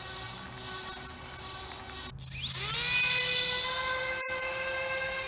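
Small 300-class brushless motor (1600 kV 'Blue Wonder') spinning a propeller on an RC car, a high whine with many overtones. About two seconds in, after a brief break, it spins up to a higher, louder whine and holds it steady.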